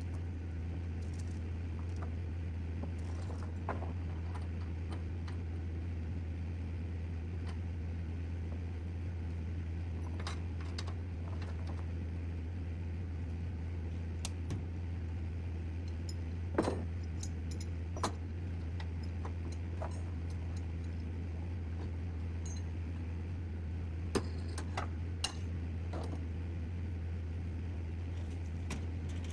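A truck's engine running with a steady low drone while driving, with scattered light clinks and rattles of loose metal over the bumps.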